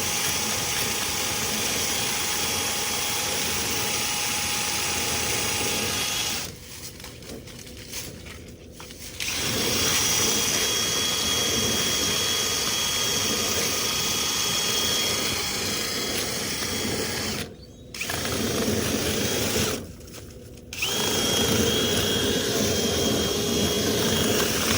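Power drill spinning a rotary cleaning brush through a dryer vent duct, running steadily with a thin whine. It stops for a few seconds about a quarter of the way through and twice more briefly later.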